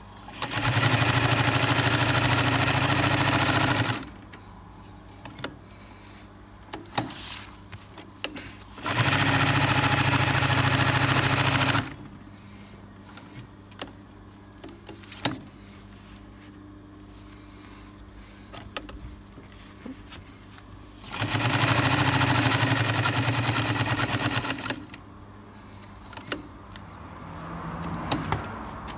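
Singer 132K6 walking-foot sewing machine stitching through about 6 mm of heavy bag leather in three bursts of a few seconds each, each a rapid, even run of stitches. Between the bursts are quieter pauses with a few clicks and a low hum, and the sound builds up again near the end.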